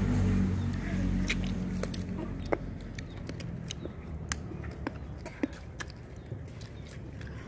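Close-up chewing of raw fruit: scattered sharp crunches and wet mouth clicks at an irregular pace, over a low rumble that fades during the first couple of seconds.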